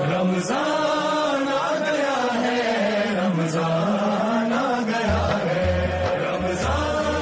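A single voice chanting a slow, winding melody with long held, gliding notes, over music; a low bass pulse comes in about five seconds in.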